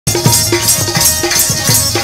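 Live Indian folk music: a hand drum beating a quick rhythm of about four strokes a second, its bass strokes bending in pitch, over a harmonium holding notes and the steady jingle of small handheld percussion.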